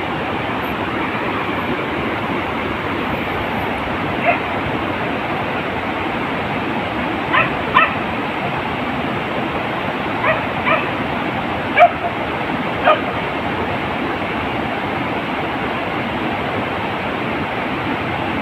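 Hunting beagle barking in short, high yelps: about seven scattered barks, several in quick pairs, over a steady rushing background noise.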